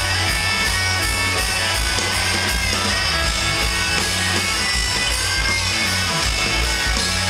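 Rock band playing live on stage: loud, steady electric guitars over a bass line.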